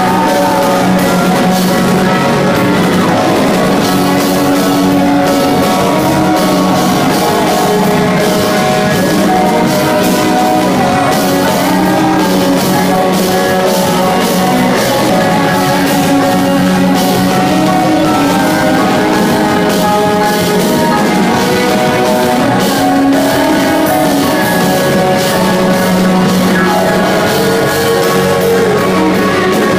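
Live rock band with electric guitars and drum kit, a male singer's voice over the band, heard from among the crowd.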